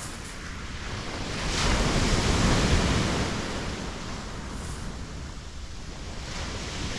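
Sea surf breaking on a shingle beach, with wind on the microphone. A wave surges in about a second and a half in, is loudest for a second or so, then falls back.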